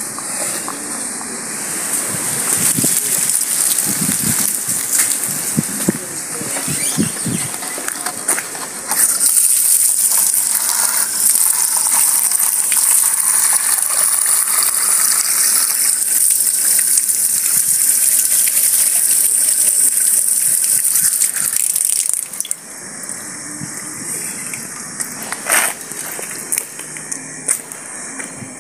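Water gushing from an outdoor tap into a cut-open plastic bottle: a loud, steady hiss for about thirteen seconds that stops suddenly. Before it, there is scattered handling noise.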